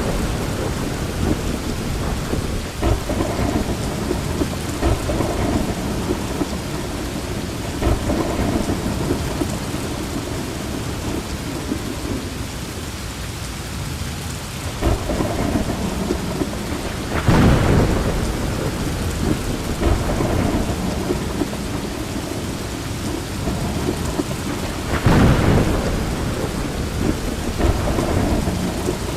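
Heavy rain falling steadily, with rolls of thunder rumbling through it and two loud thunderclaps, one just past halfway and another near the end.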